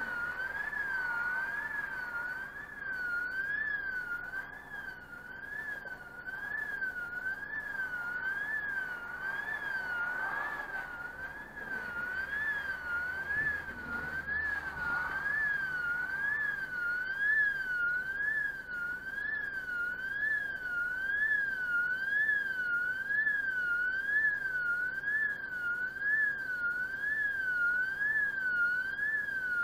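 Italian level crossing electronic warning bell sounding continuously: a tone sweeping up and down about once a second, signalling that the barriers are down for an approaching train.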